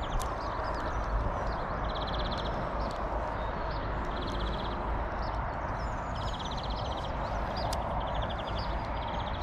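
Birds singing, one of them repeating a short, fast, even trill every second or two, over a steady rush of wind on the microphone.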